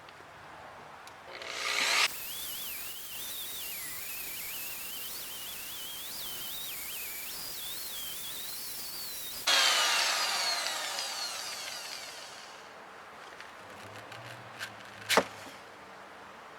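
Highland Park wet grinder/polisher spinning up, then running with a wavering whine as its 100-grit pad works the stone. About ten seconds in it is switched off and winds down with a falling pitch over a few seconds; a sharp click follows near the end.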